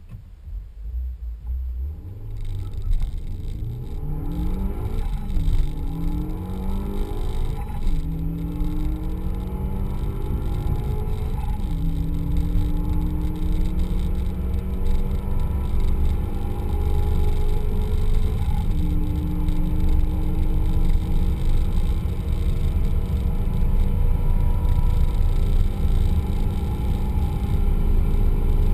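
Renault Mégane R.S. 275 Trophy's turbocharged 2.0-litre four-cylinder engine under full-throttle acceleration, heard from inside the cabin: the engine note climbs steadily in pitch, drops back at each of several upshifts, and each gear runs longer than the last. Road and wind rumble grow louder as the speed rises.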